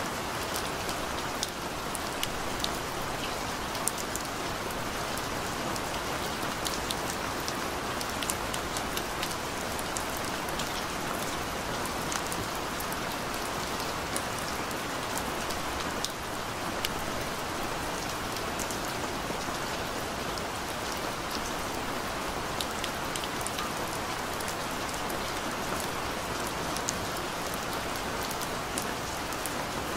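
Steady rain, an even hiss with many small, sharp drop ticks scattered through it.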